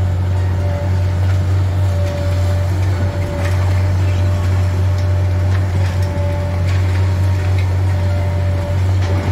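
High-reach demolition excavator running steadily with a loud low drone, a higher whine coming and going, and scattered knocks and cracks as it crunches through the concrete structure.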